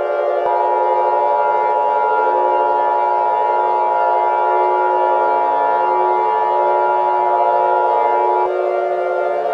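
Emergency alert warning siren: a loud, steady cluster of tones with a slight waver. A higher steady tone joins about half a second in and cuts out about a second before the end.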